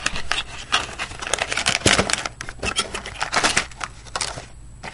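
Hands handling cardboard packaging and a clear plastic bag: an irregular run of rustles, scrapes and clicks that eases off briefly near the end.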